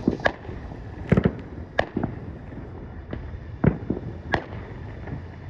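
Scattered firework pops and bangs: single sharp reports at irregular intervals, several in a few seconds, the loudest about a second in.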